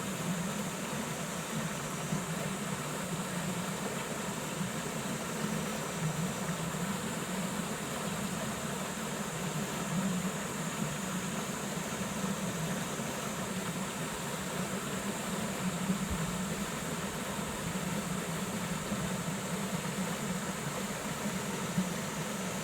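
Dense chorus of many frogs calling at once, blending into a steady, unbroken drone.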